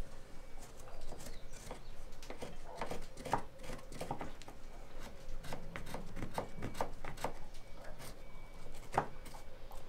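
Felt-tip marker scratching in short strokes against a fiberglass bulkhead, with light clicks and taps from handling.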